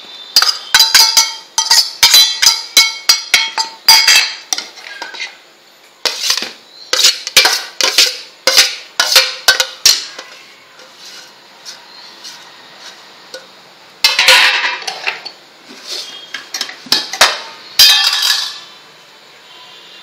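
A steel spoon clinking and scraping against a stainless steel bowl while stirring a thick batter, in quick runs of ringing metal clinks. There is a longer scrape of metal on metal a little after the middle.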